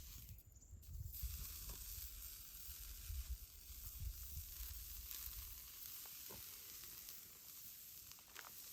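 Food sizzling as it fries in a pan: a steady hiss that starts about a second in, over a low rumble.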